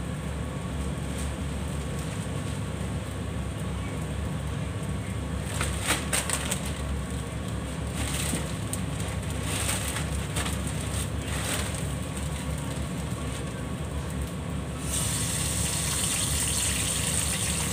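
Steady low drone of a kitchen extractor hood over gas burners, with plastic food bags crinkling and rustling in the middle. About three-quarters of the way through, a steady hiss sets in and continues.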